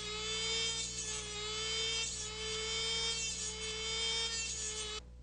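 Electric bandsaw blade sharpener's small motor running with a steady whine that wavers slightly in pitch, over a low hum; it cuts off suddenly near the end.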